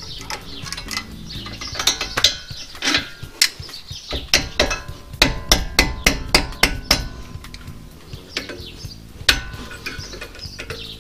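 Sharp metal taps and clicks from tools working on a Ford Kuga's front brake caliper as the pads and clips are fitted. There are scattered taps, then a quick run of about eight in the middle and one loud tap near the end.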